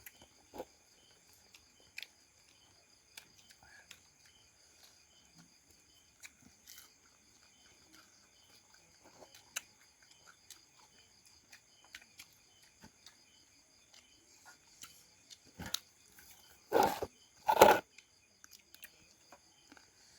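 A person quietly eating a Lao-style raw-fish laab, with small scattered chewing and utensil clicks over a steady chirring of insects. Two loud, short sounds come about three seconds before the end.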